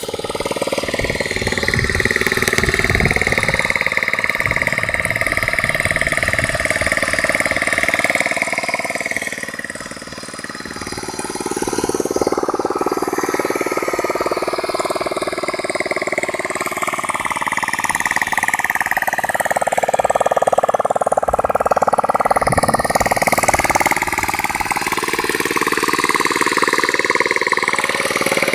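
Old motorcycle engine running steadily while driving a water pump, its pitch drifting slowly up and down.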